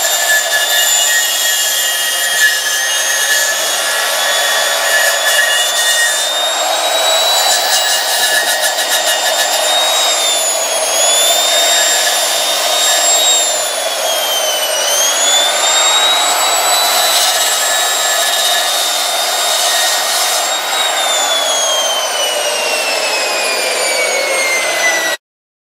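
Angle grinder running as it grinds down the brazed and welded joint around a pipe nipple on a steel propane cylinder, its whine dipping in pitch several times as the disc is pressed into the metal. Over the last few seconds the whine falls steadily as the grinder winds down, then the sound cuts off suddenly.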